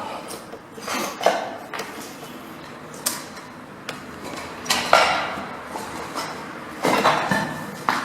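Footsteps crunching and scraping over loose debris on a floor, with some clinking, coming as a handful of irregular crunches a second or two apart.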